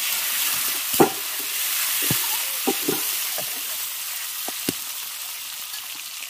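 Chopped tomato sizzling in hot mustard oil in a metal karahi, while a metal spatula scrapes and knocks against the pan about seven times, loudest about a second in. The sizzle slowly dies down.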